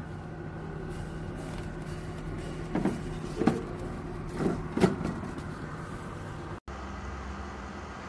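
Simplus 2.5 L dehumidifier running with a steady hum. About three seconds in there are four short plastic knocks as a hand handles the unit's casing. Near the end the hum gives way to a lower, different steady hum.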